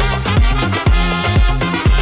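House music from a continuous DJ mix: a steady four-on-the-floor kick drum about twice a second under a bassline and busy high percussion.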